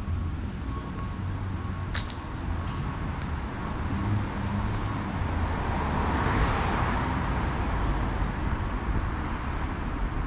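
City street traffic: a steady low rumble, with a vehicle passing that swells and fades in the middle, and a single sharp click about two seconds in.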